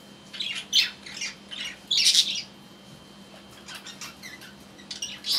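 Small caged pet parrots chattering with short, high chirps and squawks, the loudest burst about two seconds in, fewer calls in the middle and a few more near the end.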